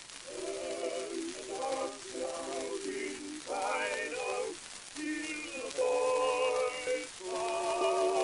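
Background music: a string of held chords with a slight waver, changing about once a second.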